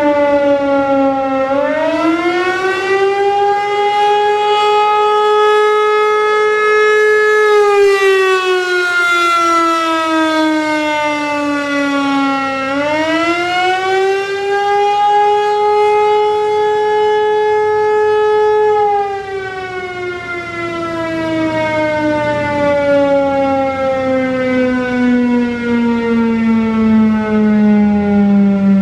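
ASC T-135 outdoor warning siren sounding a cycling signal: its pitch dips and climbs back, holds steady for several seconds, dips and climbs again, holds, then slides slowly down near the end.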